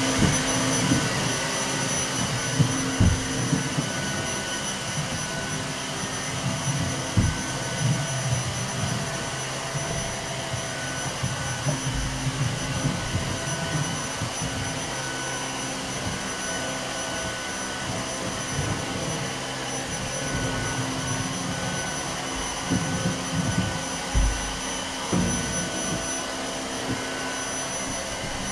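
Vacuum cleaner running steadily with a constant high whine, with a few low bumps as it is moved around.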